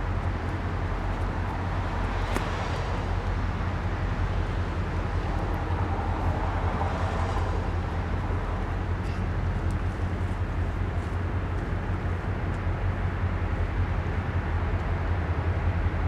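Norfolk Southern diesel locomotives running slowly on a yard move, a steady low engine drone with a few faint clicks.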